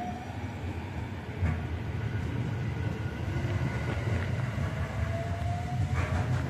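JR West 521 series two-car electric train pulling along the platform, its motors whining in slowly rising pitch as it gathers speed over a steady low rumble from the wheels.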